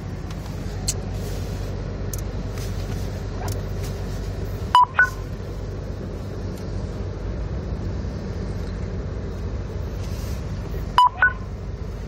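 Steady low rumble of a car moving slowly through snow, heard from inside the cabin. Twice, about six seconds apart, a short pair of electronic beeps, a lower tone then a higher one, sounds over it.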